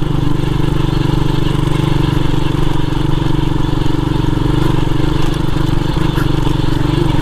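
Single-cylinder four-stroke engine of a 1986 Honda XL 125 trail motorcycle running at a steady speed while the bike is ridden, heard from on board.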